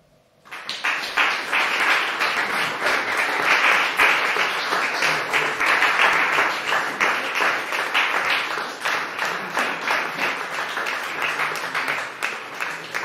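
Audience applause: many hands clapping. It breaks out suddenly about half a second in and slowly dies down toward the end.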